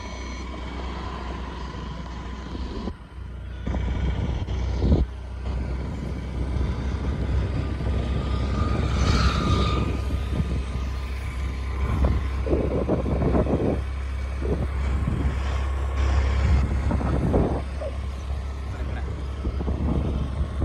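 Road noise from inside a moving vehicle on a highway: a steady low rumble of engine and tyres, with wind and traffic noise swelling and fading over it.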